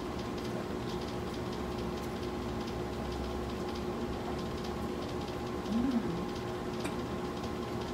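A steady background hum, with faint scattered clicks from people eating fried chicken and drinking soda. A short hummed "mm" comes about six seconds in.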